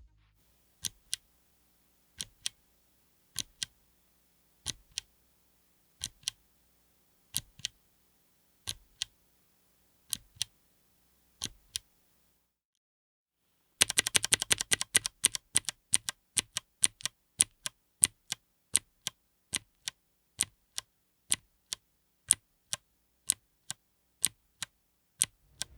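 Akko Creamy Cyan clicky mechanical keyboard switches clicking. First one key is pressed slowly at a time, each press and release giving a quick double click about every second and a bit. After a brief silence comes a faster, louder run of clicks, several a second.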